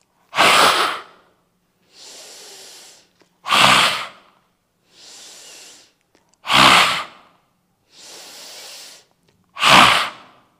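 Lion's breath in Simhasana (lion pose): four forceful exhalations through the open mouth, about three seconds apart, each followed by a softer, quieter inhale.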